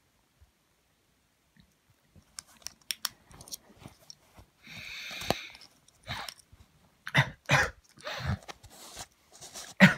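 A plastic tub and its lid being handled close to the microphone: scattered clicks and crackles, a brief rustling hiss about five seconds in, then several louder knocks and thuds near the end.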